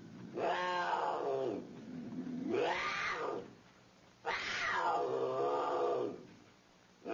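A wild cat calling: three drawn-out, pitched calls with short gaps between them, each bending up and down in pitch, the last the longest.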